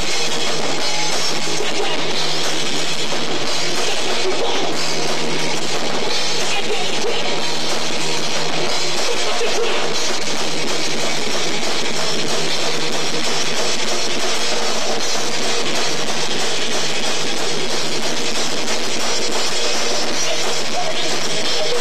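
Live rock band playing: electric guitar over a drum kit with cymbals, dense and loud at a steady level, as picked up by a VHS camcorder.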